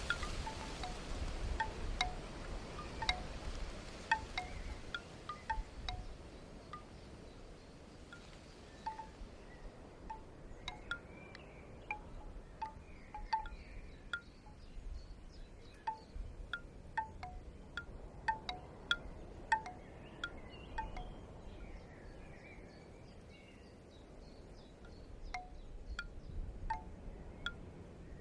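Bamboo wind chime: hollow bamboo tubes knocking together at irregular intervals, each knock giving a short pitched clack. Wind rumbles on the microphone, stronger at the start and near the end.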